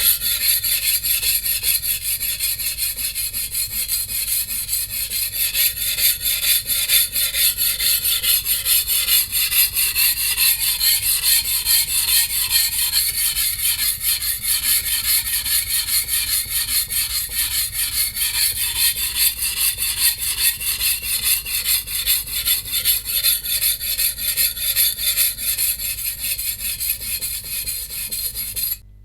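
Blade of a VG10 stainless-steel Chinese cleaver stroked rapidly back and forth on a coarse 180-grit whetstone, a steady rhythmic grinding rasp as the chipped edge is ground back. The sound cuts off abruptly near the end.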